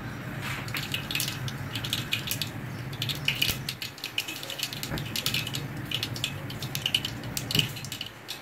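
Mustard seeds spluttering in hot sesame oil in an aluminium pressure cooker: rapid, irregular sharp pops and crackles. The popping is the sign that the oil is hot enough for the tempering.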